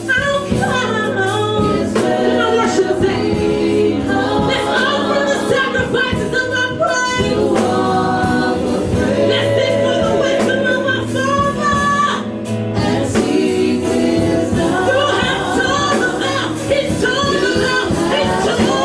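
Gospel praise-and-worship music: several voices singing over a band with a steady bass line.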